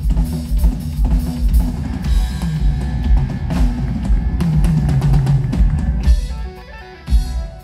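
Live rock band playing an instrumental passage: drum kit with bass drum, snare and cymbals, electric guitars, bass guitar and keyboards. About six seconds in the band drops to a quieter break, and a drum hit comes a second later.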